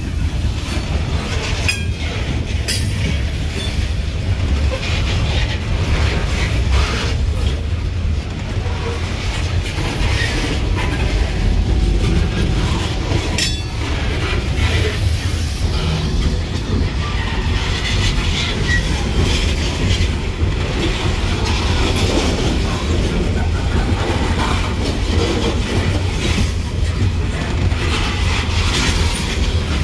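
Loaded coal cars of a freight train rolling past close by: a steady rumble of wheels on rail, with a few sharp clicks as wheels cross rail joints.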